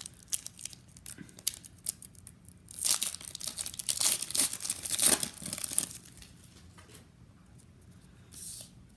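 Trading card pack wrappers being torn open and crinkled by hand, with scattered light clicks at first, then a loud stretch of tearing and rustling, and one short rustle near the end.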